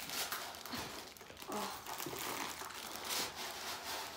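Plastic mailer bag crinkling and rustling in the hands as a cardboard box is pulled out of it, in irregular swells.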